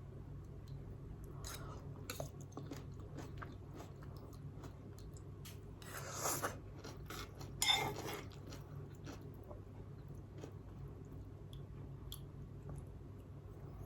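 Close-miked chewing of spicy instant noodles, with many small wet clicks of the mouth. There are two louder, longer sounds about six and eight seconds in, and a steady low hum underneath.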